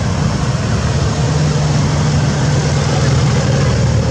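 Car engine running close by with road noise, a steady low hum.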